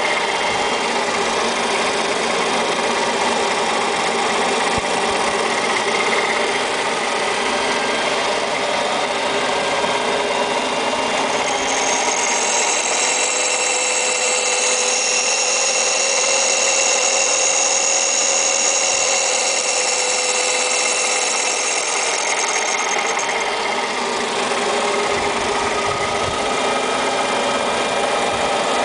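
Mico Collet A015 gear shaper cutter grinder running, a steady machine hum with several tones. For about twelve seconds in the middle a high-pitched grinding sound joins as the grinding wheel works the shaper cutter's teeth.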